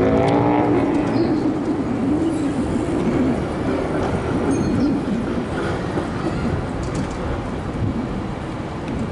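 Electric street tram running past on its rails: a steady rolling rumble with a wavering whine, strongest in the first second.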